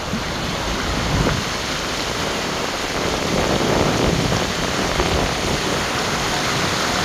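Steady rushing noise of floodwater on a flooded road, with a low rumble underneath and a slight swell about a second in and again around four seconds.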